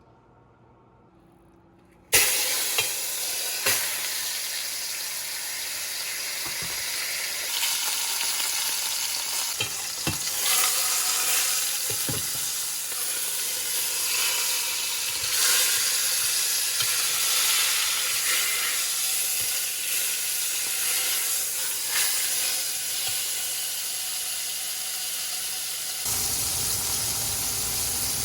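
Food frying in hot oil in a pot: a steady sizzle that starts abruptly about two seconds in, with a few sharp knocks scattered through it.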